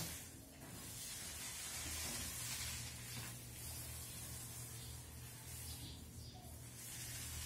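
Paint roller on an extension pole rolled over a wall: a faint, sticky crackling hiss that swells and fades with the strokes, over a steady low hum.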